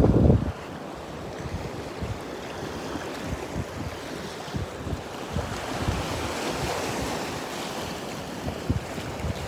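Small waves washing over a rocky lava shoreline and tide pools, a steady rush of surf, with wind buffeting the phone microphone. A brief loud gust of wind on the microphone comes right at the start.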